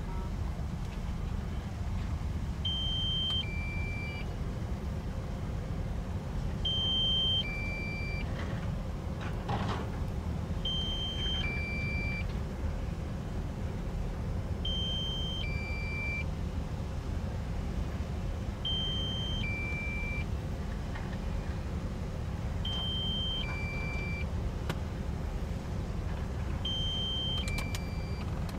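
Kobelco excavators' diesel engines running under load as they dig and load a dump truck, a steady low rumble. Over it, an electronic two-note warning alarm, a high note then a lower one, sounds seven times, about every four seconds.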